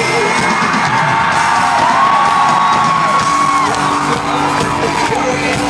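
Loud amplified live pop music in an arena, with fans screaming and whooping over it in long, high cries that rise and fall.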